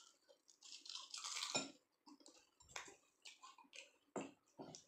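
Close-up eating sounds: crunchy bites and chewing of crispy breaded fried chicken, with a few light clicks of a spoon against a ceramic bowl.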